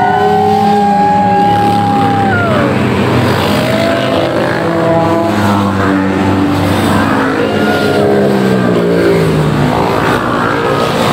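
A stream of motorcycles riding past, several engines overlapping, their pitch rising and falling as each one goes by.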